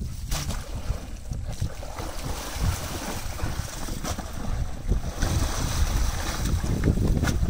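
Wind buffeting the microphone with a gusting low rumble, over water sloshing as a person wades and shifts a mud-filled sack in shallow muddy water. There are a few small clicks near the end.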